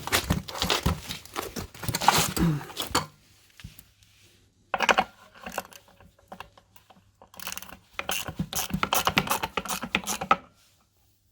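Air filter housing on a ZMZ-405 engine being taken apart by hand: plastic and metal parts clicking, knocking and rattling in three runs of handling noise.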